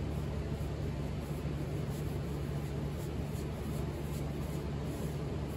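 Steady low machine hum and hiss, with faint regular swishes about two or three times a second, like strokes of an applicator wetting the old finish with solvent to soften it.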